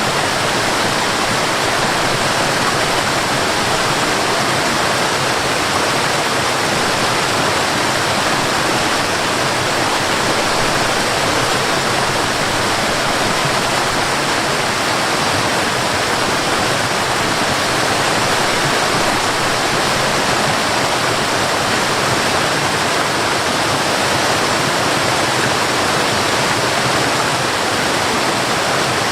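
Waterfall: a steady, loud rush of falling water with no swells or breaks.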